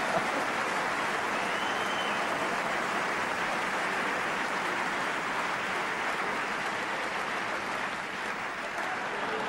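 Audience applauding in a steady, sustained round of clapping that eases slightly near the end.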